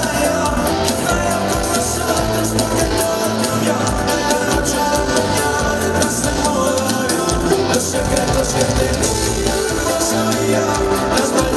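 Live band playing a Latin pop song with a steady beat, with a male singer's vocals.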